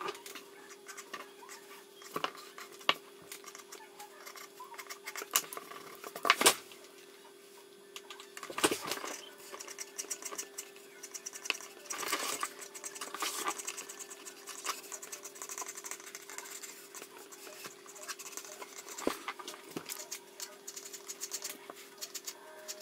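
Pencil scratching on paper in quick, uneven strokes as a portrait is sketched, with a few louder scratches about six and nine seconds in, over a faint steady hum.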